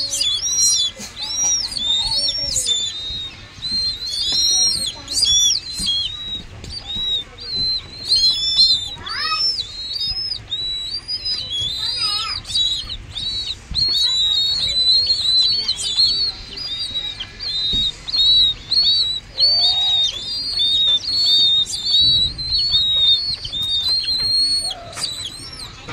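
Downy raptor chicks begging while being hand-fed: high-pitched, arched cheeps repeated over and over, several a second.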